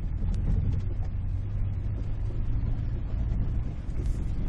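Ford Ranger pickup engine running steadily under heavy load at low speed while towing a gooseneck trailer loaded with a Case 580M backhoe: a constant low rumble with small rattles and knocks throughout.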